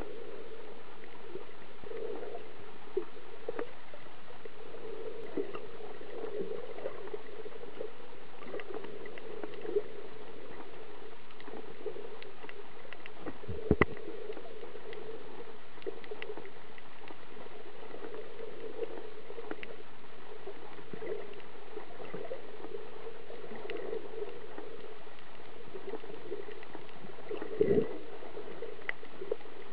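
Muffled underwater water noise picked up by a submerged camera, steady throughout, with faint scattered clicks and two brief knocks, one about halfway through and one near the end.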